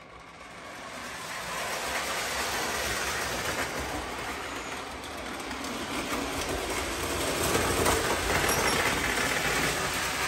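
O gauge model train running along the layout's track: a steady rumble of wheels and motor on the rails that grows louder over the first couple of seconds as it comes closer.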